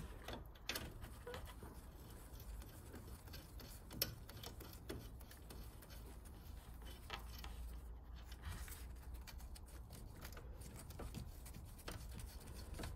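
Faint, irregular clicking of a ratchet and 10 mm socket turning the nut on a car battery's hold-down clamp, loosening it, with one sharper click about four seconds in.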